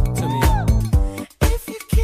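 Upbeat dance music with a steady drum beat and bass.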